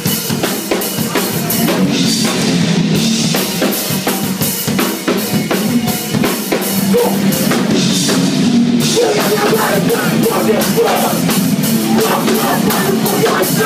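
Live rock band playing loudly, its drum kit driving a fast, steady beat of about four hits a second.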